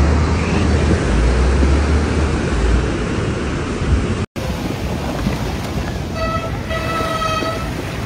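Car driving through shallow seawater floodwater, heard from inside the cabin: a steady rush of water and wind over a low rumble. After a short dropout about four seconds in comes a lighter rush of wash and wind, and a horn sounds twice, two steady tones about six seconds in.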